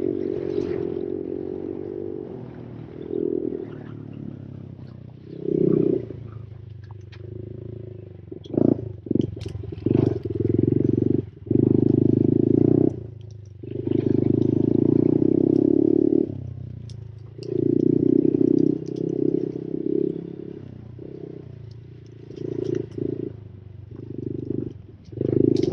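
Honda CRF110 pit bike's small single-cylinder four-stroke engine revving hard in repeated bursts as the throttle is opened and shut, dropping back between them. A few sharp knocks come through in the middle.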